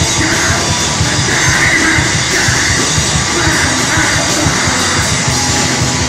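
Blackened hardcore band playing live at high volume: distorted guitars and fast, dense drumming, with the vocalist screaming over them in repeated shouted phrases.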